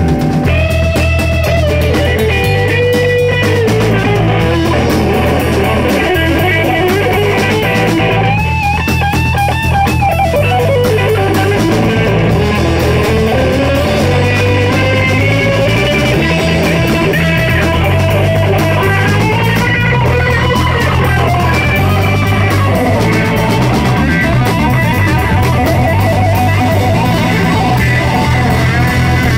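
Live rock band playing an instrumental section: an electric guitar plays lead lines with string bends and vibrato over bass guitar and a drum kit.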